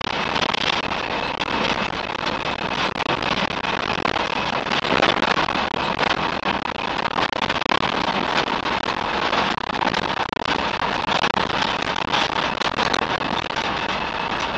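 Land Rover Series III 109 breakdown truck on the move, heard from inside the cab: steady engine and road noise with a constant clatter of small rattles and knocks.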